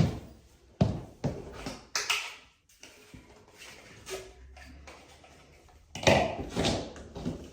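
Scattered knocks, taps and a short rustling clatter of things being handled and set down on a hard surface. The loudest burst comes about six seconds in.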